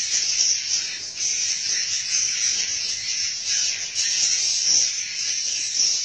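Dense, unbroken high-pitched twittering of many edible-nest swiftlets in a swiftlet house.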